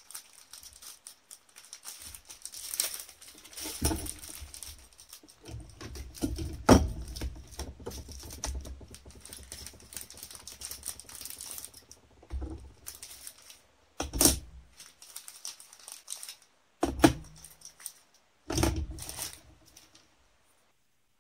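Clear plastic parts bags crinkling and rustling as small model-kit parts are handled, with small parts clicking against each other. Several sharp knocks come in between, the loudest about a third of the way through.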